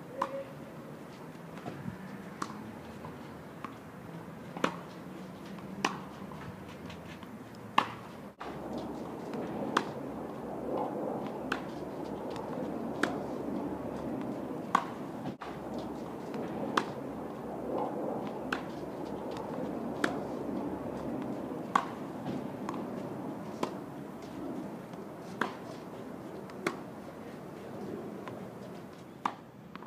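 Tennis balls struck by rackets in a rally, a sharp pock every one to two seconds, over a steady background hum that grows louder about eight seconds in.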